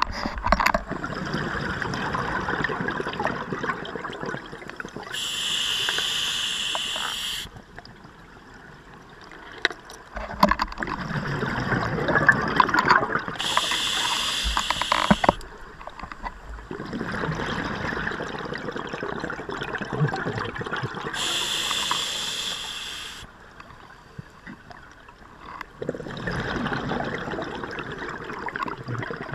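Scuba diver breathing through a regulator, heard underwater: three inhalations, each a bright hiss of about two seconds, alternating with longer bubbling rushes of exhaled air, about one breath every eight seconds.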